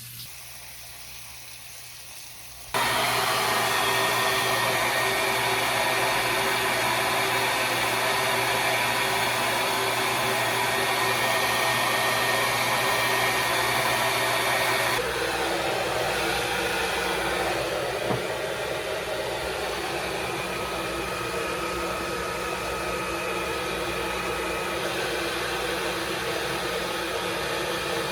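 Handheld hair dryer switched on about three seconds in and running steadily; about halfway through its sound changes and gets slightly quieter.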